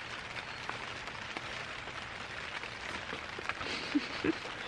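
Rain falling on a tent: a steady hiss scattered with sharp little taps of drops striking the fabric. Two brief low blips come near the end.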